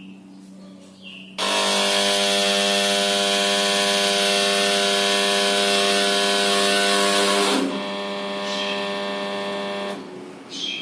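Failing compressor of an LG S-05LPBX-R air conditioner trying to start: a low steady hum, then about a second in a sudden loud whining buzz that runs for about six seconds, drops to a quieter whine, and cuts off near the end. The whine is the sign of the compressor failure.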